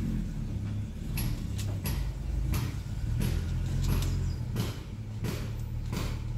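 Small metal clicks and taps, about a dozen, as fan washers and parts are handled and fitted onto the motor shaft, over a steady low hum.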